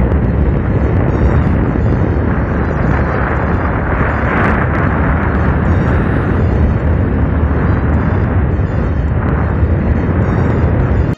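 Heavy, steady wind buffeting on the microphone of a Bajaj Pulsar 150 motorcycle at road speed, mixed with the bike's running noise.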